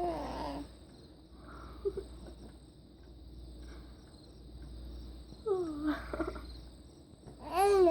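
Baby cooing and squealing: a short coo at the start, a couple more about five and a half seconds in, and a rising-then-falling squeal near the end, with quiet gaps between. A faint steady high-pitched hiss runs underneath.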